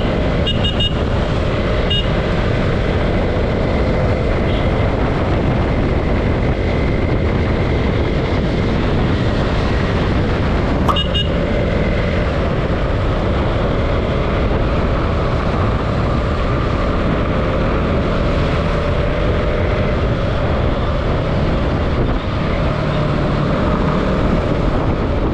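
KTM Duke 200's single-cylinder engine running as the motorcycle rides through traffic, under a steady heavy rush of wind on the camera's microphone. A few short high beeps come near the start and again about eleven seconds in.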